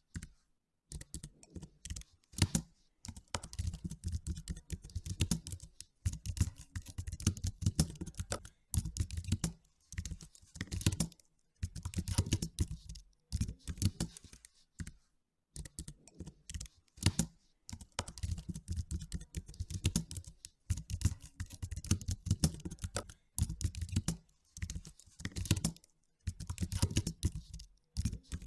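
Computer keyboard typing in quick runs of keystrokes, a second or two at a time, with short pauses between.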